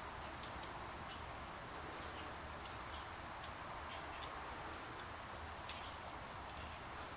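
Quiet background: a steady hiss and a low hum, with a few faint, short, high chirps and light clicks scattered through.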